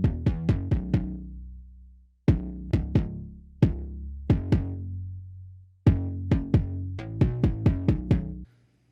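Electronic kick drum and synth bass line playing together in a loop, the bass ducked around the kick by Smart:Comp's spectral ducking. The drum hits stay punchy and the bass stays clear. The playback stops about half a second before the end.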